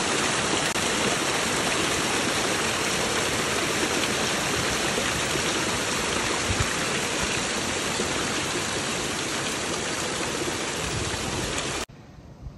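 Creek water rushing and splashing through a jam of ice-coated branches and logs, a steady loud rush that cuts off suddenly near the end.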